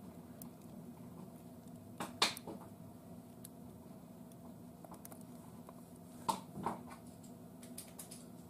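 A steady low hum with a few light clicks and knocks: a pair about two seconds in, another pair about six seconds in, and faint ticks near the end.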